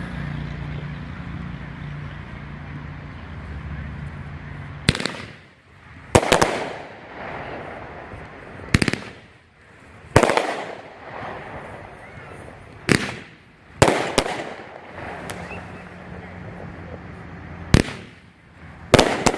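17-shot 500-gram consumer fireworks cake (Shogun 'Jingle Jangle') firing. The first sharp report comes about five seconds in, then about ten shots follow irregularly one to three seconds apart, some in quick pairs, each trailing off in a fading smear.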